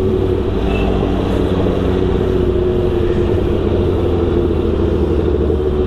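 Motorcycle engines running steadily with a constant drone.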